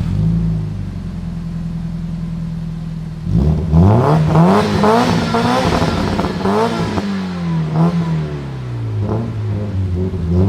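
Supercar engine idling, then revved hard several times from about three seconds in, its pitch climbing and dropping with each blip before easing back toward idle, with a few smaller blips near the end.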